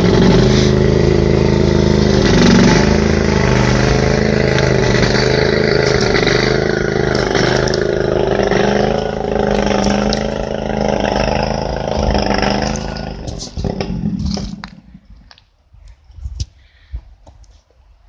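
An engine running steadily close by, a loud even hum of several tones, which dies away about thirteen to fifteen seconds in. After that, only scattered light knocks.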